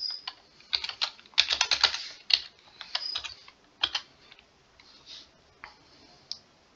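Typing on a computer keyboard: quick runs of key clicks through the first four seconds, then a few scattered keystrokes and a pause.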